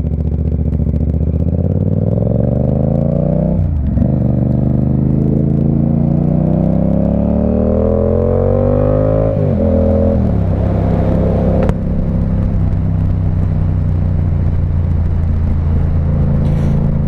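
Yamaha MT-07's parallel-twin engine through an SC Project Conic exhaust with the baffle out, pulling hard through the gears: the revs climb, drop at a gear change about four seconds in, climb again, fall away at about nine seconds, then hold steady.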